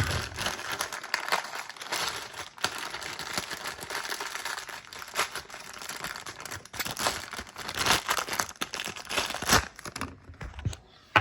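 Packaging being crinkled and torn open by hand: continuous rustling and crackling with scattered sharp clicks, fading out shortly before the end.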